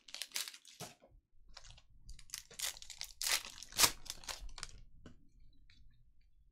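Foil wrapper of a 2020 Panini Contenders football card pack crinkling and tearing as it is ripped open by hand: a run of sharp crackles, loudest about four seconds in, tailing off into a few light ticks.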